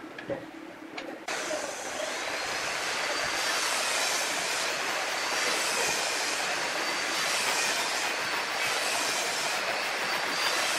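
Fine-toothed handsaw cutting across a wooden cylinder: steady back-and-forth sawing that starts about a second in after a couple of light knocks, swelling with each stroke about once every second and a bit, with a faint wavering whine from the blade.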